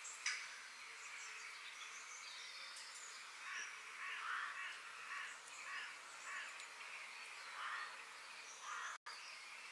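Forest birds calling over a steady background hiss: thin high calls throughout, and a run of harsh, repeated calls from about a third of the way in. The sound cuts out for an instant near the end.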